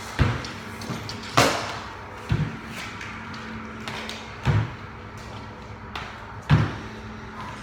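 Loaded barbells with bumper plates dropped onto a rubber gym floor, a heavy thud every one to two seconds, the sharpest about a second and a half in.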